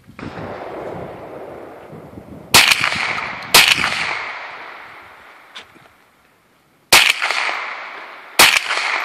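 Four shots from a Ruger SR22 .22 LR semi-automatic rifle, each a sharp crack followed by a long echo. The first two come about a second apart, then after a pause of about three seconds two more come about a second and a half apart.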